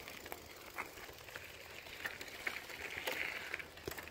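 Faint handling noise from a phone held in the hand: scattered light clicks, with a brief rustle about three seconds in.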